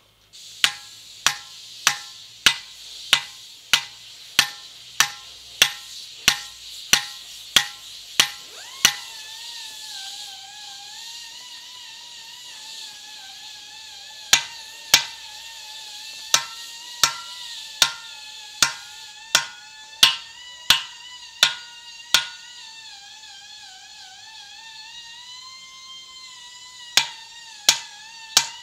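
Hand hammer striking the steel wedges of a set of feathers and wedges in a marble block, driving them in turn to split off a corner: sharp metallic strikes about one and a half per second. The hammering comes in three runs, stopping after about nine seconds and again after about twenty-two. From about nine seconds a faint high tone slowly rises and falls behind it.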